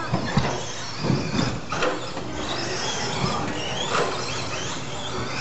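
1/10-scale RC stadium trucks racing on an indoor dirt track: motors whining up and down in pitch over the scrabble of tyres on dirt, with a few sharp knocks in the first two seconds.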